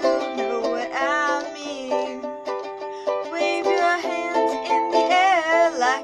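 Red soprano ukulele strummed in steady chords, with a voice singing over it and holding wavering notes about a second in and again near the end.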